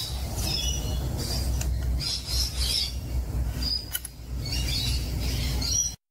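Wild parrots chattering in clusters of short, high chirps over a low, steady rumble; the sound cuts off abruptly near the end.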